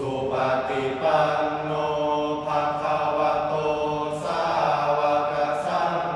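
Thai sarabhanya (สรภัญญะ) chanting by a group of five young men in unison: a melodic Buddhist chant sung on long held notes with brief breaks between phrases.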